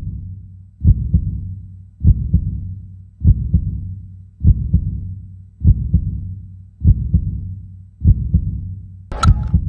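Heartbeat sound effect, a slow double thump about every 1.2 seconds, building suspense. A short sharp crack cuts in near the end.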